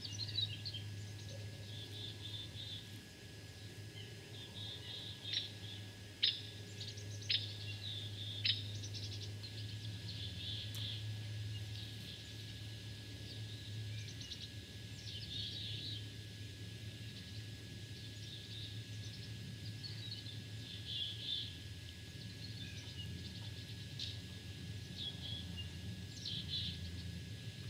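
Small birds chirping in short, high-pitched bursts on and off, over a steady low hum. A few sharp clicks come about five to nine seconds in.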